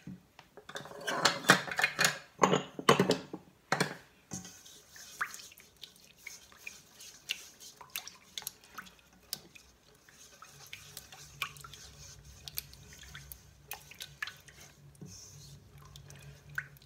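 Silicone spatula stirring a liquid garlic-and-sugar marinade in a stainless steel bowl: swishing liquid with scratching against the metal, dense and loud for the first few seconds, then quieter and sparser. The scratching comes from sugar grains not yet dissolved, rubbing on the bowl.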